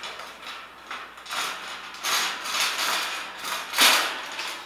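Iron bird cage panel being worked down into its corner grooves: metal scraping and rattling in a series of rough strokes, the loudest a little before the end.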